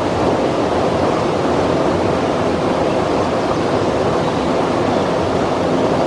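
Mountain stream rushing over its bed, a steady, unbroken wash of water.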